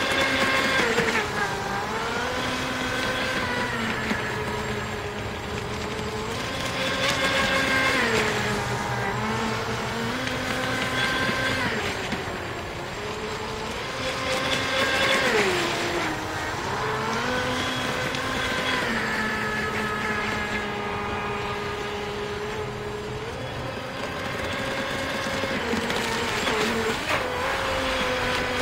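Brushless electric motor and flex-shaft drive of a radio-controlled jet ski model whining over a hiss, the pitch holding steady, then dipping and climbing again several times as the throttle changes.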